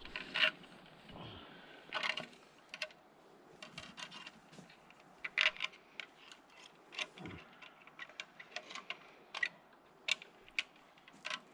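Footsteps crunching through dry forest undergrowth: faint, irregular snaps and crackles of twigs and dry debris underfoot, a few per second at most.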